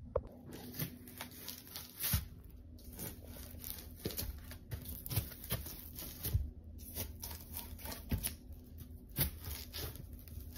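A screwdriver being pushed and twisted into expanded polystyrene foam board to bore holes, giving a rapid, irregular series of scratchy crunches and crackles.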